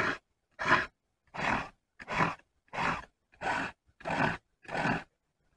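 A round file rasping through the cutters of a chainsaw chain by hand, in eight even strokes of about one and a half a second.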